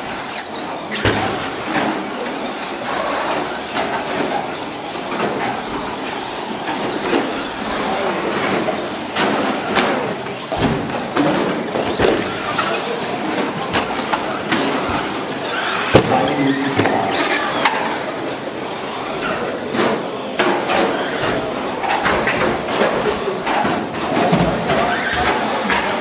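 A pack of RC short course trucks racing, their running drowned in a steady dense noise. Several sharp knocks stand out as trucks land jumps and hit the track, the loudest about two-thirds of the way through.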